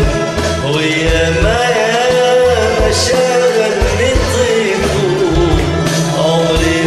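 A man singing an ornamented Arabic tarab melody into a microphone, with long wavering held notes, over a karaoke backing track with a repeating bass beat.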